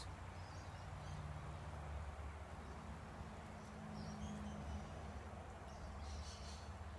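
Quiet outdoor background: a steady low hum with faint, short bird chirps every second or two.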